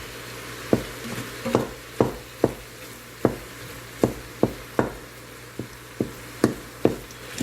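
A utensil knocking and scraping against the Instant Pot's metal inner pot while ground meat is mashed apart as it browns: about a dozen sharp, irregular knocks over a steady sizzle.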